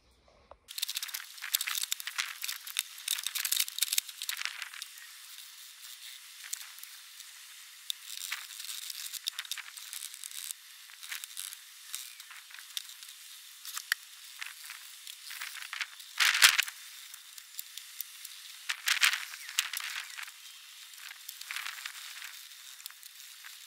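A cloth scrubbed back and forth over the plastic of a Toyota HiAce door trim panel: a dry, scratchy rubbing in uneven strokes, with a louder scrape about sixteen seconds in.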